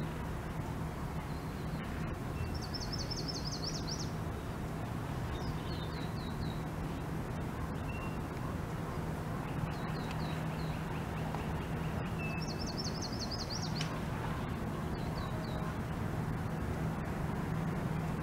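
Small songbirds singing: quick trills of rapid high notes repeated several times, the two longest runs about three seconds in and again about twelve seconds in, over a steady low hum and background noise.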